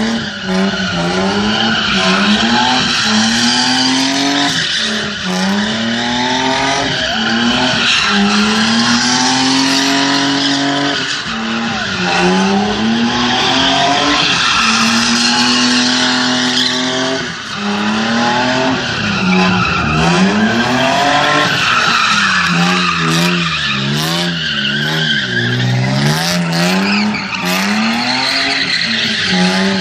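BMW E30 drifting: its engine revs up and down again and again while the tyres squeal and skid. Near the end the revs swing in quicker, shorter blips.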